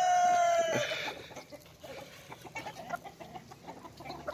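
An Australorp rooster crowing, the end of a long call that drops in pitch and stops just under a second in, followed by soft scattered clucking from the flock of Australorp chickens.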